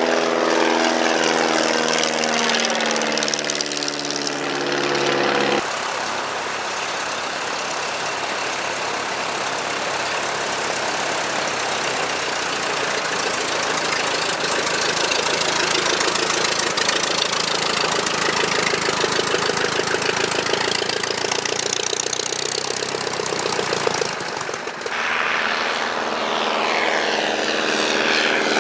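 Vintage propeller aircraft engines in three edited shots. First a de Havilland Moth Minor flies past on take-off, its engine note falling in pitch. About five and a half seconds in, the sound switches abruptly to a de Havilland Fox Moth biplane's engine running steadily on the ground with the propeller turning, and near the end an Auster flies past with its engine pitch falling.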